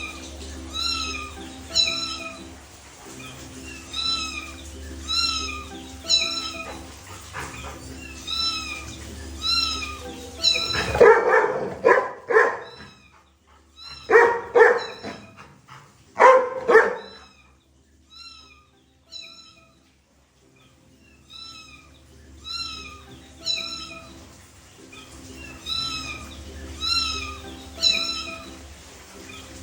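Short, high meow-like calls repeating about once a second over a steady music track. From about 11 to 17 seconds in, a run of much louder bark-like bursts comes in, and the calls resume near the end.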